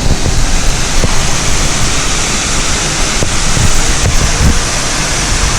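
Steady rushing of Scaleber Force waterfall heard close up, a loud, even wash of falling water, with some low rumbles of wind on the microphone.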